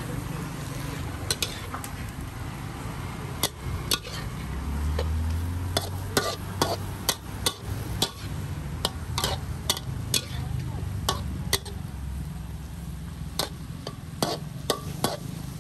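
Metal wok ladle stirring and scraping in a steel wok, with frequent irregular sharp clanks against the pan as sliced pork, chilies and basil are tossed over the heat, and a faint sizzle of frying. A steady low rumble runs underneath.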